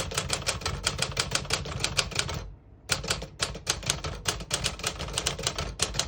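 1956 Smith-Corona Clipper manual portable typewriter being typed on at a brisk, even pace, type bars striking the platen about eight to ten times a second, with a short pause about halfway through before the typing goes on.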